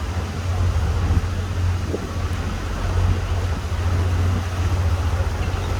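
Sightseeing boat's engine running with a steady low drone.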